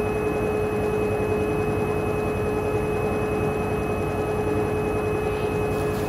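Hoover front-loading washing machine running with a steady motor whine over a low rumble, its drum choked with foam: a suds lock, where excess suds keep the machine from spinning normally.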